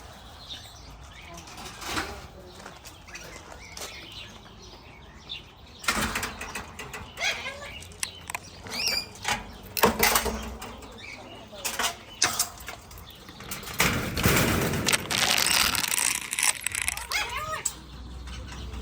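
Parrots in a walk-in aviary: scattered short squawks and chirps, some rising in pitch, among the rustle and flutter of wings flapping. A louder, noisier flurry comes about two-thirds of the way through and lasts a few seconds.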